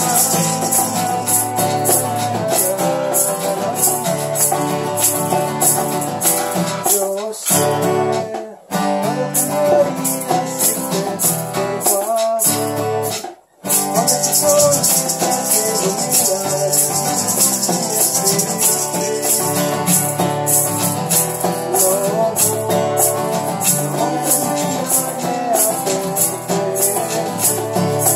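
A man sings to his own strummed acoustic guitar while maracas are shaken in rhythm. The music stops for a moment twice, about eight and a half and thirteen and a half seconds in.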